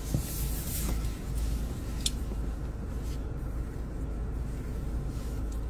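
Steady low rumble of a car heard from inside the cabin, with a brief rustle near the start and a short high click about two seconds in.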